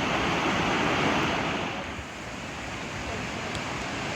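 Rushing water making a steady roar that eases slightly about two seconds in.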